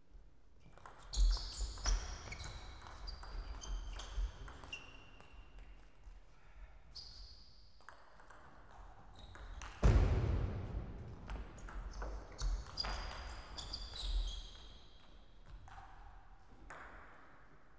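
Table tennis rallies: the ball clicking off the rackets and bouncing on the table in quick irregular taps, with short high squeaks from shoes on the court floor. A loud thump breaks in about ten seconds in.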